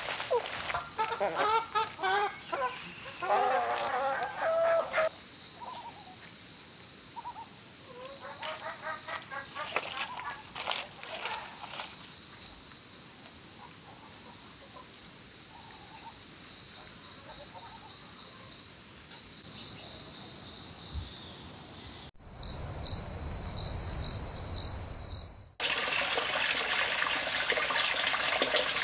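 Chickens clucking, with a rooster among them, over the steady chirping of insects. Near the end comes a steady rush of liquid: wine running from a dispenser's spigot into a glass bottle.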